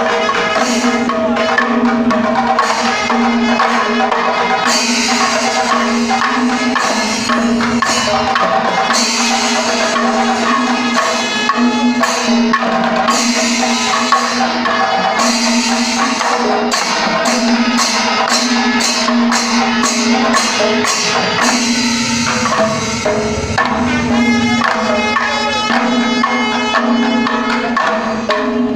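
Panchavadyam temple ensemble playing: timila hourglass drums beaten in a dense rhythm with cymbals clashing, and a run of quick, even strokes about halfway through.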